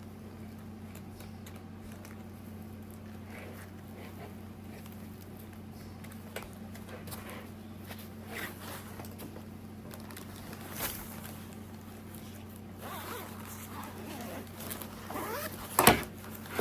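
A backpack being handled: fabric rustling and soft clicks of straps and buckles, then its zipper pulled open in several short strokes near the end, with one sharp click just before the end. A steady low hum runs underneath.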